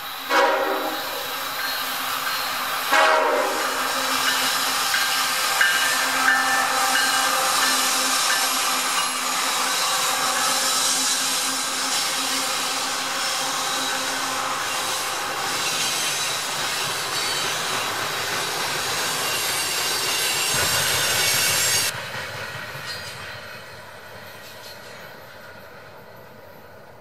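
CSX GE diesel locomotives sound two short horn blasts, then a loaded coal train rolls past: a steady rumble and clatter of hopper-car wheels over the rail joints, with high wheel squeal on the curve. The noise drops suddenly about 22 seconds in and then fades.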